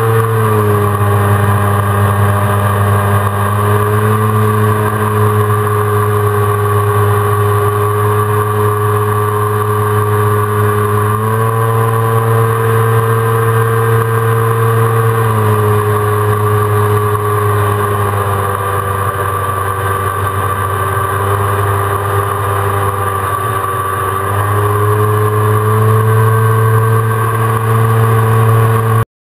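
Jet ski engine running at speed close to the microphone: a steady drone that steps up and down in pitch several times as the throttle changes. It cuts off abruptly near the end.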